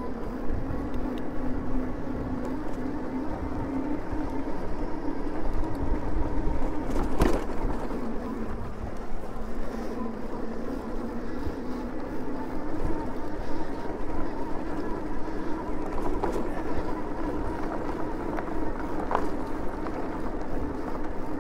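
Super73 electric bike's hub motor whining steadily under power while riding over dirt, over a low rumble of wind and trail noise. A single sharp knock about seven seconds in.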